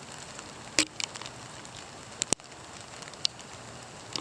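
Rain falling steadily in a garden, a constant hiss with a few sharp, scattered drips or taps.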